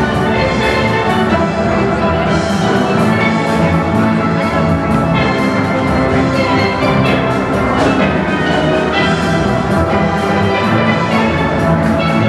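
Steel band playing a piece: many steel pans, from high lead pans down to full-barrel bass pans, struck in a steady rhythm with drums underneath, the whole ensemble sounding continuously at even loudness.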